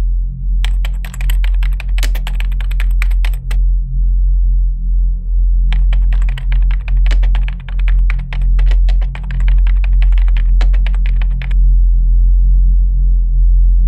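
Rapid computer-keyboard typing in two runs, one of about three seconds and a longer one of about six seconds, over a steady low droning music bed.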